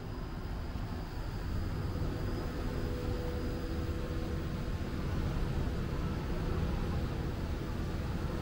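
Steady low rumble of distant city traffic, with a faint even machine hum running through it.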